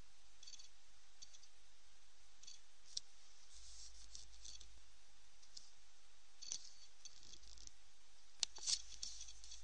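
Faint steady hiss with a few small sharp clicks, about three seconds in, about six and a half seconds in, and a louder close pair near the end.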